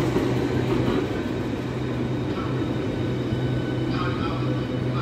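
Train running past the station platform, a steady low drone of engine and wheels on the rails.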